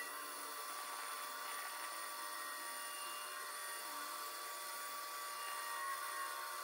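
Pegas scroll band saw running and cutting a thin wooden piece along a pattern line: a steady high whine over a continuous cutting hiss.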